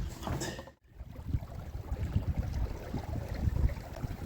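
Wind buffeting the microphone on a small sailboat under way, an irregular low rumble, after a short knock just before a brief dropout a little under a second in.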